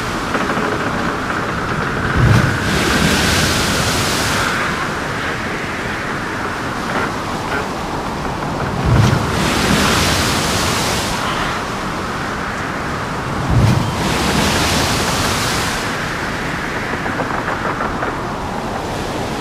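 Storm at sea around a ship: a steady noise of wind and heavy seas, swelling every few seconds as a wave surges through. Three heavy low thuds come about two, nine and thirteen and a half seconds in, each at the start of a surge.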